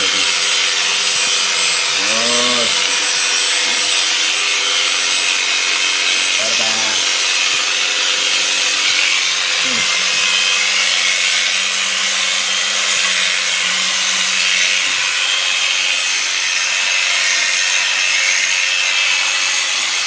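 Electric sheep-shearing clipper running steadily, its cutter working through the fleece as a sheep is shorn.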